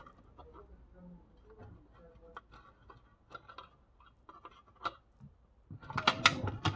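Light clicks and taps of small metal hardware and a steel steering plate being handled and fitted at the clamp of an outboard motor, with a louder burst of clattering knocks near the end.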